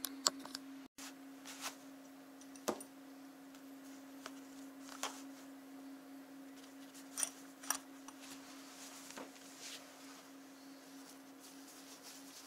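Faint clicks and rustles of clothing and tools being handled as a hammer is tucked into a work-pants pocket and belt loop, heard a handful of times over a steady low hum.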